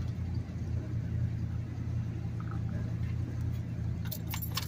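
Pickup truck engine running steadily, heard from inside the cab as a low rumble. Near the end come a few sharp clicks and jangles.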